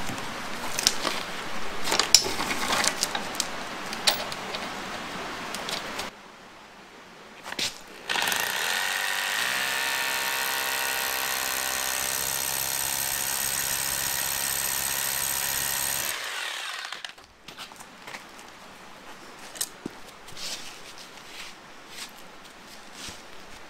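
Hammer knocks for several seconds, then a corded rotary hammer drill runs steadily for about eight seconds, boring an anchor hole into the concrete floor, and winds down. Light clicks and scrapes of handling follow.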